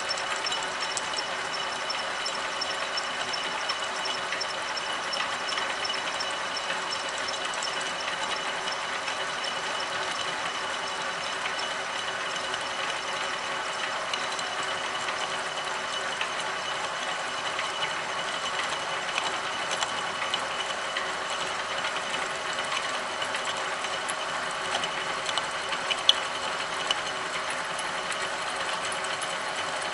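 Milling machine running under power feed as a spiral end mill cuts the edge of a cam held on a geared dividing head: a steady mechanical whir of motor and gears with fine rapid ticking from the cut. A couple of sharper clicks come near the end.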